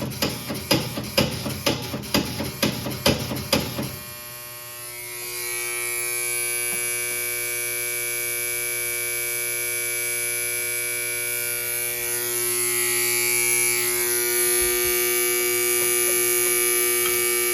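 Fire alarm signals under test: an alarm bell struck in quick, even strokes, about two or three a second, stops about four seconds in. About a second later a fire alarm horn starts a steady buzz and keeps sounding, a little louder from about twelve seconds in.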